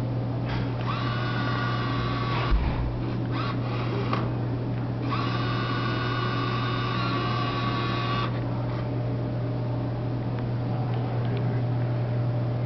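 Vending machine bill acceptor's motor whining as it draws in a dollar bill, twice: a short whine about half a second in and a longer one about five seconds in, each rising slightly in pitch as it starts. A steady low hum from the machine runs underneath, with a single knock about two and a half seconds in.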